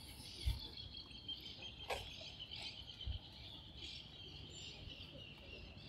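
Steady high-pitched buzz of insects in the trees, with a brief sharp chirp about two seconds in and a couple of soft low thumps.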